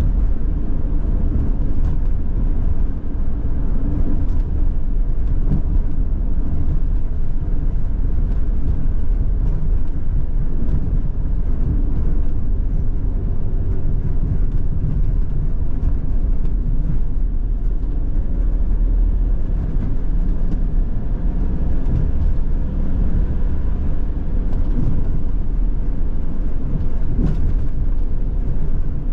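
Van driving along at steady speed, heard inside the cabin: a continuous low rumble of engine and tyres on the road.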